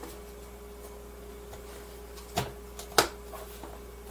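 Plastic food-container lid being pressed down and snapped onto its tub: a few small ticks, then two sharp clicks about two and a half and three seconds in, the second the louder, over a steady faint hum.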